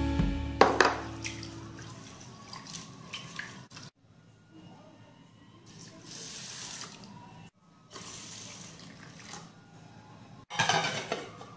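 Water poured from a plastic jug into a steel pot of raw rice, splashing onto the grains. The pouring comes in a few short spells, the loudest near the end.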